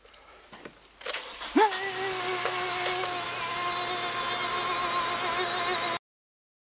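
Car ignition turned and the engine starting about a second in, then a loud, steady, pitched electric buzz with a quick rising onset: the electrocution through jumper cables clamped to a man's chest. It cuts off abruptly near the end.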